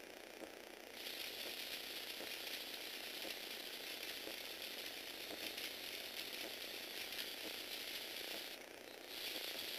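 Lego Technic 8043 excavator's electric motors and plastic gear trains running, a steady whirr with rattling gear clicks, as the motors drive the boom. The drive starts about a second in and changes near the end.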